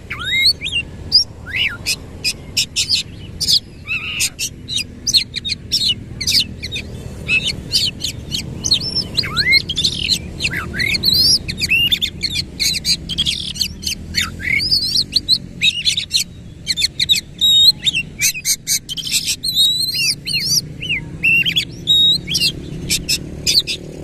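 Oriental magpie-robin (kacer) singing vigorously in one continuous run of sharp whistles, rapid clicks and quick up-and-down glides, without a pause.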